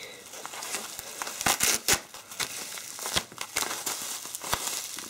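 Bubble wrap being pulled off and handled: irregular crinkling of the plastic with sharp, uneven crackles.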